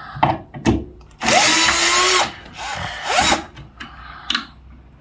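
Power drill run in two bursts while fitting cabinet knobs: a longer run of about a second shortly after the start, then a shorter one around three seconds in, the motor whine rising as it spins up. A few knocks come before the first run.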